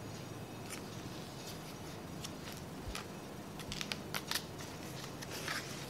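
Hardcover picture book handled and its cover opened: scattered light clicks, then a cluster of crisp taps about four seconds in, and a short papery rustle near the end.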